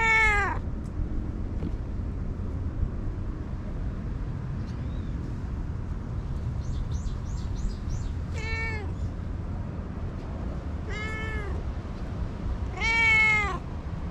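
Stray tabby cat meowing four times: once right at the start, then three more in the second half, with the first and last calls the loudest.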